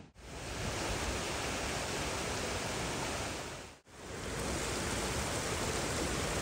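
River water rushing through a narrow rock gorge, a steady even noise that drops out briefly nearly four seconds in and then carries on much the same.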